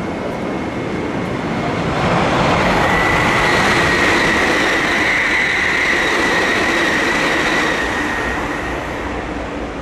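Keisei Skyliner express train passing along the platform without stopping. Its rumble and rail noise swell about two seconds in, carry a high steady whine, and fade away about eight seconds in.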